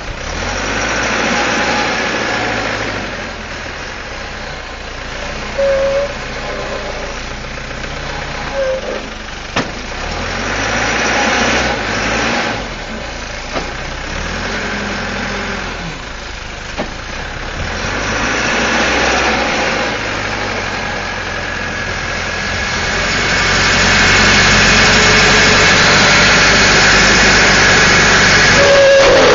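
Caterpillar 416C backhoe's Perkins turbo diesel engine running, revving up and dropping back several times as the machine is worked, then held at high revs for the last several seconds. A few short squeaks come through early on.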